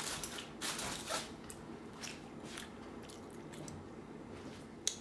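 Someone eating a mouthful of macaroni and cheese: soft chewing with a few quiet clicks and scrapes, and one sharper click near the end.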